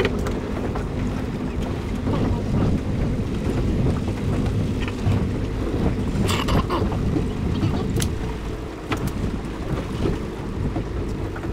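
Small open fishing boat's outboard motor running steadily at low speed, with wind on the microphone. A few sharp clicks and knocks sound past the middle.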